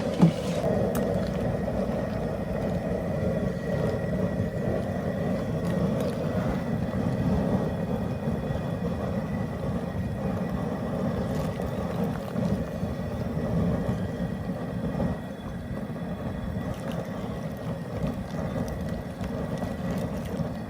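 Steady rushing roar of a propane burner firing under a large crawfish-boil pot, with the water at a rolling boil.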